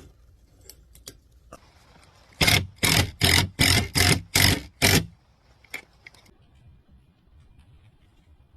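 Aerosol lubricant sprayed onto garage-door rollers and track in seven short squirts, about three a second, after a few faint clicks.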